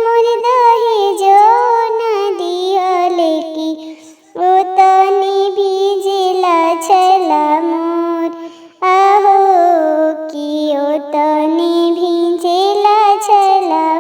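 A woman singing a traditional Bhojpuri wedding song (vivah geet) in a single voice, in long, sustained, ornamented phrases. There are short breaks about four and nine seconds in.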